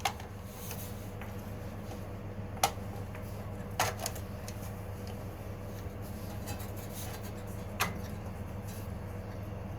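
Four short metallic clicks and clinks of tools and engine parts being handled while the carburetor and air filter are fitted to a Honda GX160 engine, spread a second or more apart over a steady low hum.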